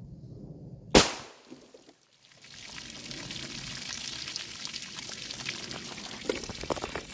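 A single 9mm shot from a Palmetto State Armory Dagger pistol about a second in. It is followed by a steady hiss of water pouring and trickling out of the burst plastic gallon jug.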